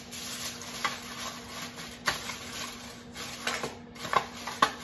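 Aluminium foil crinkling and rustling as it is pressed and crimped down over the rim of a disposable aluminium foil baking pan, with a few sharper crackles.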